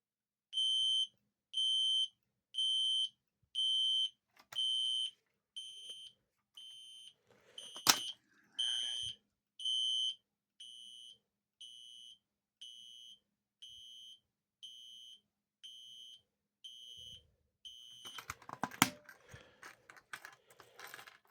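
System Sensor SpectrAlert Classic fire alarm horn sounding a pulsed temporal pattern of high beeps, about one and a half a second, loud at first and then quieter after about six beeps. A sharp click comes near the middle. The horn stops about 18 seconds in, and handling clunks and rustling follow.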